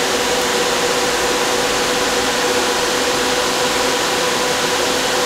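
Cooling fans of a GPU mining server case running at full speed: a loud, steady rush of air with a constant whine.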